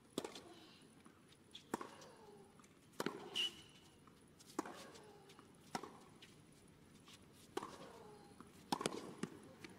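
Tennis rally on a hard court: sharp knocks of the ball off the rackets and the court, roughly every one and a half seconds. There is a brief high squeak about three and a half seconds in.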